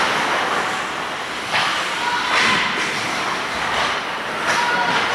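Ice hockey play on a rink: skates hissing and scraping on the ice, with sudden sharper scrapes or stick hits about one and a half, two and a half and four and a half seconds in, over the arena's general din.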